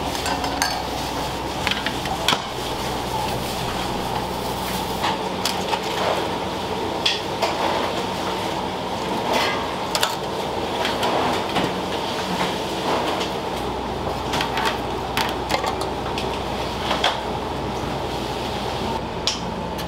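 Commercial kitchen noise: a steady machine hum under frequent clatter and knocks of utensils, pans and dishes.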